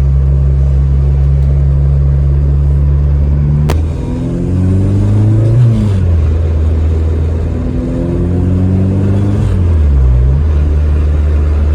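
Honda K24 four-cylinder engine in an Acura RSX running steadily, then climbing in revs twice, each time falling back. A single sharp click comes just before the first climb.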